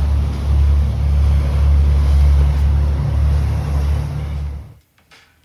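Steady low drone of a Grand Banks 36 trawler's inboard engine running underway, with a rushing noise of wind and water over it; it cuts off abruptly near the end.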